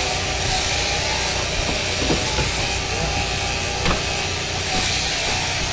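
Electric sheep-shearing handpiece on an overhead-drive shearing plant running steadily as it cuts through a heavy fleece, a constant whirring hiss over a low hum, with a couple of faint knocks.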